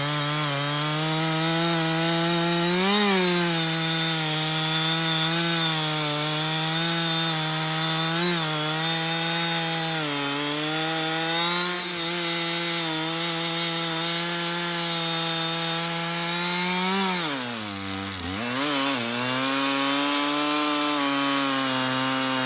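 Two-stroke chainsaw cutting through a fallen sycamore trunk, held at high revs in the cut with small wavers in pitch. About three-quarters of the way through, the revs flare, dip sharply, and then settle at a lower steady speed.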